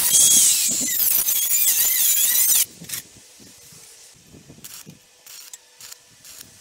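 Angle grinder with a cut-off disc cutting thin sheet metal: a loud, high-pitched screech with a wavering whine that stops abruptly about two and a half seconds in. After it, a few light clinks and taps as the thin metal is handled.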